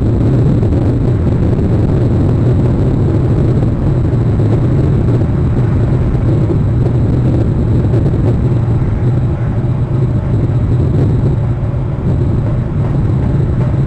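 Steady low rumble with a hiss above it, even in level and with no distinct events.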